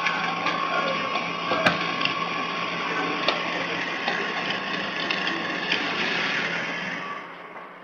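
Steady mechanical whirr with a hum, dense small clicks and rattles running through it; it dies away near the end.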